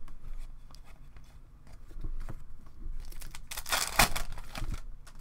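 Foil wrapper of a trading card pack crinkling and tearing, loudest for about a second near the end, among light clicks of cards being handled.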